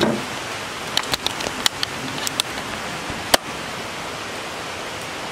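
Camera handling noise: a string of sharp clicks and knocks as the camera is jostled about, stopping about two thirds of the way in, over a steady hiss.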